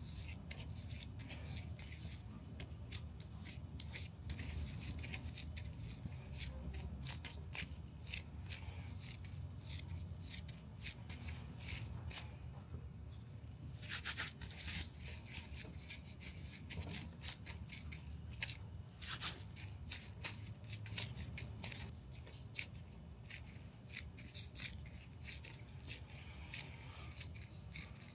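Gloved hands rubbing and smoothing water-activated FireWrap HRD fiber-and-resin tape wrapped around a tool handle, a continuous crackly, scratchy rubbing as the wet resin is worked into the wrap. A couple of louder swipes come about halfway through and again a little later.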